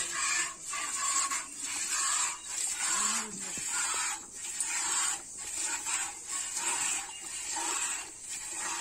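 Milk squirting from a cow's teats into a metal bucket during hand milking: short hissing spurts in a steady rhythm.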